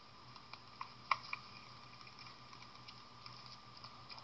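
A Muscovy duckling's feet pattering on a laminate floor: a few light scattered clicks and taps, the loudest about a second in, over a faint steady high whine.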